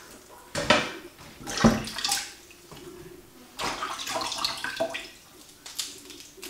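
Wet pak choy leaves snapped off the stalk by hand: several short, crisp snaps and wet rustles, with quiet gaps between them.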